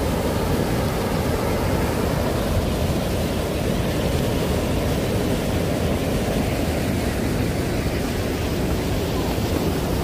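River water rushing over a low weir and rocky shallows, a steady, unbroken rush of white water.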